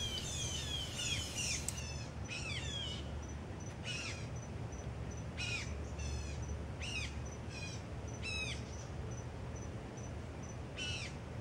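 Wild birds calling: clear, down-slurred chirps repeated every second or so, after a quick flurry of higher chirps at the start. A faint insect keeps up a high, evenly pulsed note underneath.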